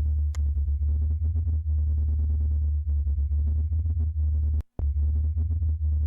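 Very low, steady electronic drone, the sonified 'sound' of Saturn's moon Dione, like a very low triangle wave. Faint rapid fluttering sits above it, and it cuts out for an instant about four and a half seconds in.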